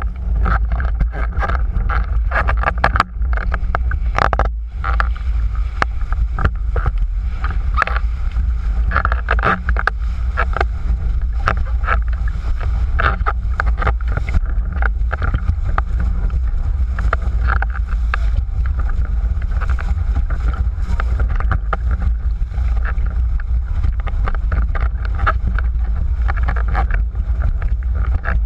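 Wind buffeting the microphone of a boom-mounted action camera on a windsurf board planing fast over choppy water. There is a steady low rumble, with many short slaps and splashes from the board hitting the chop and throwing spray.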